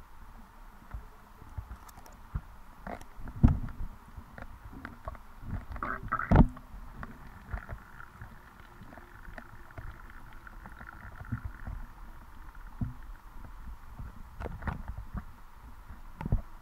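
Muffled underwater sound picked up by a GoPro in its waterproof housing: low rumbling water noise with irregular knocks and thumps, the two loudest about three and a half and six and a half seconds in.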